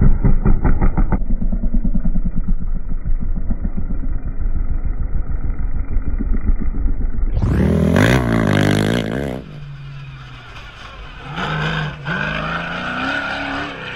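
Engine of a racing quad passing on dirt, heard muffled. Then, after a cut about seven seconds in, the engine of an off-road race truck revs and passes close with its pitch falling. Near the end it accelerates again with a rising pitch.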